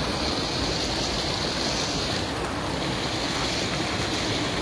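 Shallow stream water rushing and splashing around a man wading and scooping with a round hand net, with wind rumbling on the microphone.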